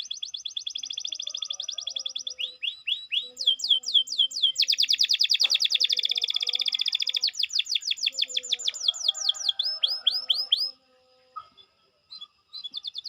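Domestic canary singing in rolling trills: phrases of rapidly repeated high whistled notes, each phrase at a different speed, the fastest and loudest in the middle. It breaks off briefly about eleven seconds in, then starts again.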